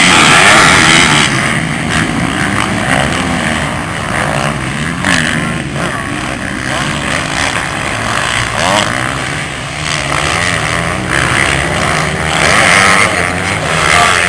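A pack of motocross bikes racing, several engines revving up and down over one another as they shift and take the turns. Loudest as the pack passes at the start, fading somewhat, then swelling again near the end.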